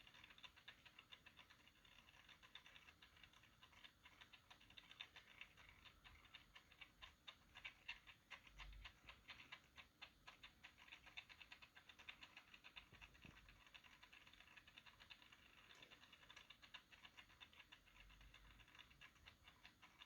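Faint, rapid crackling and ticking of packaging being handled, otherwise near silence.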